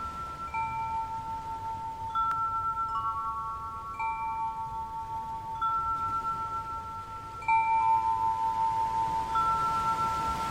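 Metal chimes struck one at a time, a few clear pitches every second or two, each ringing on for several seconds so the tones overlap in a slow meditative sequence.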